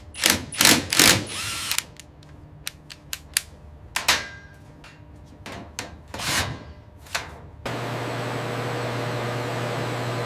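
Cordless drill-drivers running in short bursts, with sharp clicks between them. About eight seconds in, a small handheld rotary tool starts running steadily with a constant hum and hiss.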